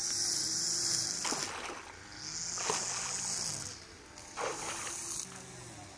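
Water splashing three times as a long-handled metal hook drags cut grass and weeds out of an irrigation canal, over soft background music and a steady high hiss.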